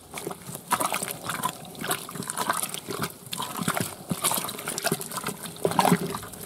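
Wooden stick stirring a thick slurry of chicken manure and water in a 200-litre barrel: irregular wet squelching and sloshing.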